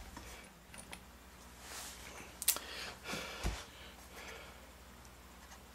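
Faint handling noises while taking parts off a small refrigeration compressor: a few soft rustles, a sharp click about two and a half seconds in and a brief low knock a second later.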